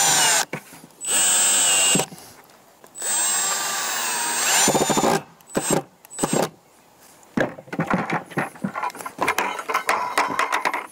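Cordless drill driving screws with washers through a plastic feed pan into wood: three long runs of the motor whine, then two short blips. After that come scattered knocks and clatter of plastic buckets being handled.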